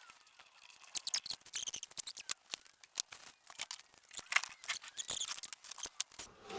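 Rapid, irregular clicks, crackles and rustles of materials being handled, starting about a second in.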